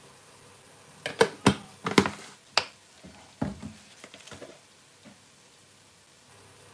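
Kitchen clatter: a quick run of sharp knocks and clicks about a second in, then a few softer taps.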